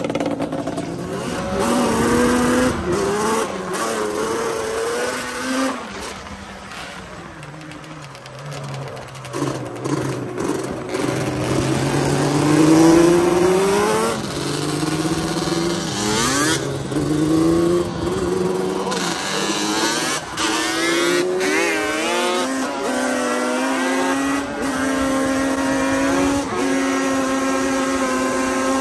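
Yamaha Banshee twin-cylinder two-stroke quad engines revving and pulling through the gears, the pitch climbing and dropping back at each shift. Near the end they settle into a steady drone at cruising speed.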